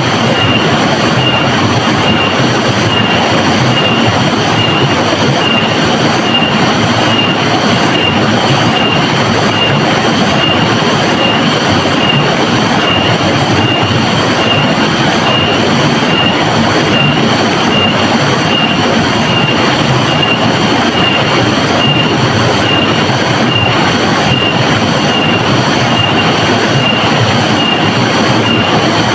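Rushing river water, a steady loud wash with no breaks, with a thin high tone pulsing evenly a bit over once a second.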